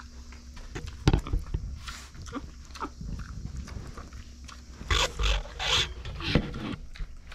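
Micro pig rooting and sniffing along the floor of her pen, foraging for dropped corn, with a sharp knock about a second in and a louder spell of snuffling around five to six seconds in.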